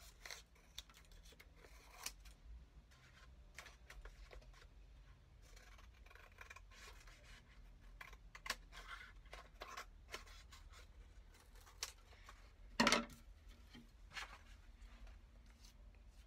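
Scissors snipping through paper in short, irregular cuts, trimming the excess off the edges of a paper book jacket. One louder thump about three-quarters of the way through.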